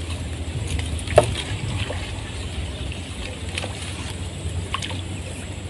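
Water sloshing around an angler standing waist-deep in swamp water as he handles a landing net, over a low steady rumble, with scattered small clicks and one sharp knock about a second in.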